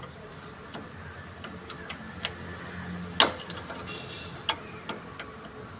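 Scattered small metallic clicks and scrapes of a flat screwdriver pressing and turning a brake shoe hold-down spring retainer on a rear drum brake, freeing the shoe. One sharper click sounds about three seconds in.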